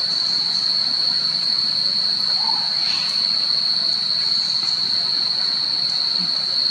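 Steady high-pitched insect drone, one unbroken buzz held level throughout, over a soft hiss.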